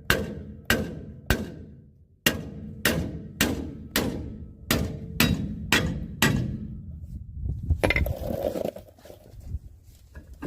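A hammer tapping a truck's brake drum to free it from the hub: about eleven sharp metallic strikes, each ringing briefly, spaced roughly two a second. A short scraping rattle follows near the end.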